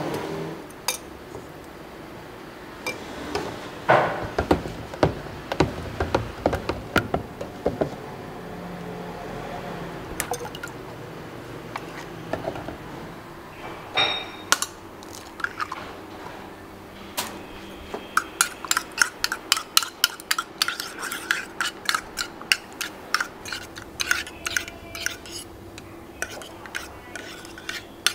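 Metal utensils clinking and clattering against steel cookware, then a metal spoon stirring thick batter in a small metal cup, knocking the rim in a quick, even rhythm of about three strokes a second through the last third.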